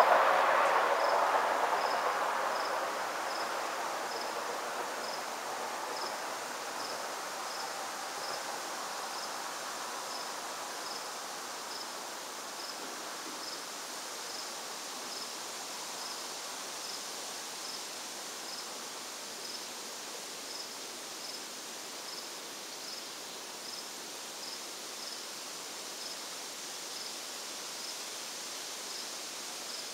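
An insect chirping steadily on a high pitch at an even pace, a little more than once a second, over faint outdoor background noise. A louder passing-vehicle rumble fades away over the first few seconds.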